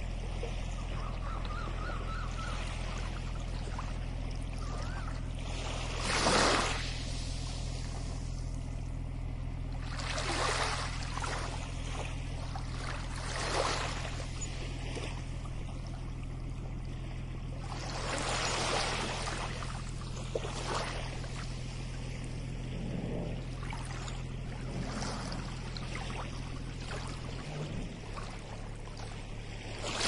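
Small waves washing onto a sandy shore, with a surge of surf every few seconds over a steady low hum.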